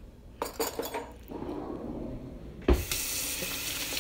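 Dishes and cutlery clinking a few times, then a single loud knock, followed by a kitchen tap running steadily into a stainless-steel sink.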